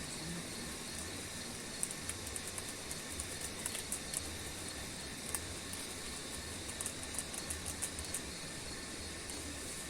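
Night insects in forest: a steady high-pitched chorus, with two spells of rapid, very high ticking.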